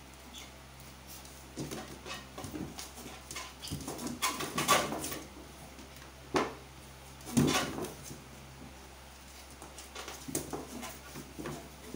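Two small long-haired dogs play-wrestling: scuffling and knocking of their bodies and paws against a board floor and wall, with a few louder bursts of dog noise in the middle. A faint steady hum sits underneath.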